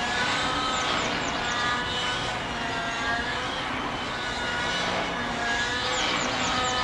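Radio-controlled Synergy N9 helicopter's O.S. .91 glow engine and rotor blades running hard, the pitch wavering up and down as it flips and pirouettes repeatedly under load. A quick run of high chirps comes about a second in and again near the end.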